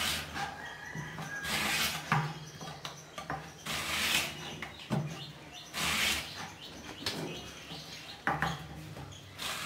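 Raw green banana being sliced on a wooden mandoline slicer: a rasping stroke about every two seconds as the banana is pushed across the metal blade.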